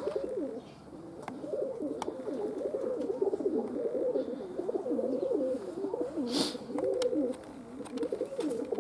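Domestic pigeons cooing continuously, several calls overlapping, with a short hiss about six seconds in.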